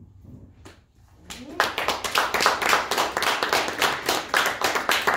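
Congregation hand-clapping, starting about a second and a half in: quick, closely spaced claps from several people, with voices underneath.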